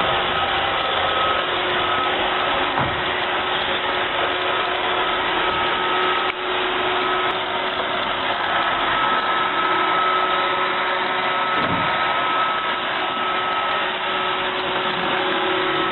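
Roomba robot vacuum running, a steady motor whir with a constant high hum.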